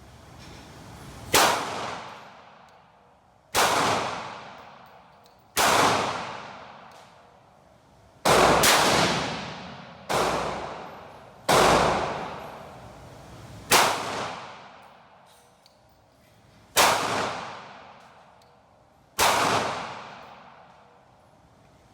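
Glock 19 9mm pistol firing slow, deliberate single shots, about nine spaced roughly two seconds apart, each shot echoing for a second or so, while the red dot sight is being zeroed.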